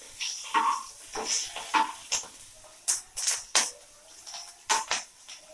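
Metal spatula scraping and knocking against a non-stick frying pan, about ten irregular strokes, while stirring dried red chillies and slit green chillies frying in mustard oil. A faint sizzle of the hot oil runs underneath.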